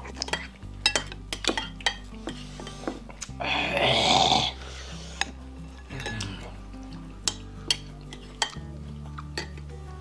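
Metal spoons clinking and scraping against ceramic bowls as two people eat soup, with many sharp clicks. Background music with a steady low bass line plays underneath, and a louder noise about a second long comes about three and a half seconds in.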